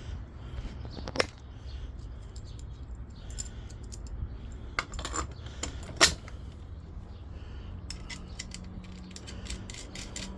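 Scattered metallic clinks and clicks of small hardware and hand tools being handled. The sharpest knock comes about six seconds in, and a quick run of light clicks comes near the end.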